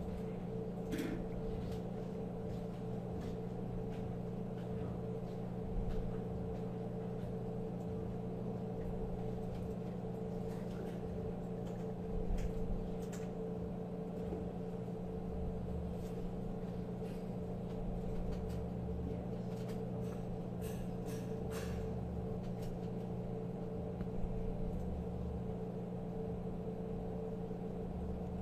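A steady low hum, with scattered faint clicks and taps of small screws being driven back into a receipt printer's auto-cutter with a small Phillips screwdriver.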